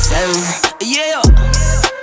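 Hip hop music with a heavy, deep bass beat.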